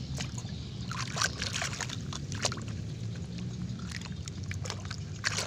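Water sloshing as a hand swishes a small plastic toy loader through muddy water to wash it, with a few short splashes.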